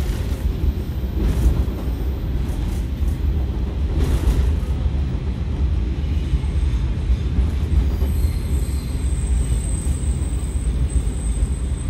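KiHa 147 diesel railcar running along the line, heard from inside the car: a steady, strong low rumble of engine and wheels, with a few short clicks from the wheels over rail joints. A faint high whine comes in about eight seconds in.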